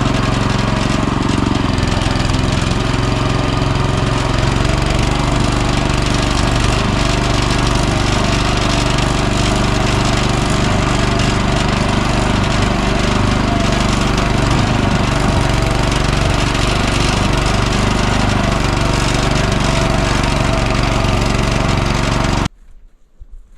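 Walk-behind tractor engine running steadily at constant speed, with a low, even chugging note; it cuts off suddenly near the end.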